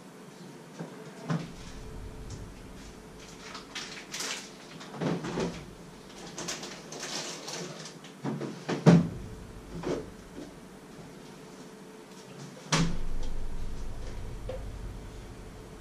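Refrigerator door opened and handled: a series of knocks and clunks as things are moved about inside, the loudest about nine seconds in, then a thud about thirteen seconds in as the door shuts, followed by a low rumble that fades.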